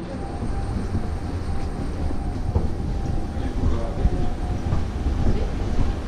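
Steady low rumble with a faint steady whine above it: airport apron and aircraft noise heard inside a glass-walled jet bridge, mixed with footsteps of people walking along it.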